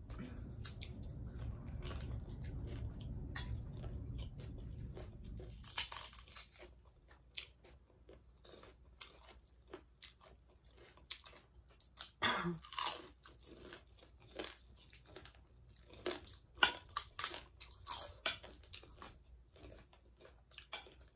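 Close-up chewing and crunching of crunchy Nepali street snacks, chatpate puffed-rice mix and pani puri shells, in irregular sharp crunches with the loudest bites in the second half. A low rumble sits under the first few seconds.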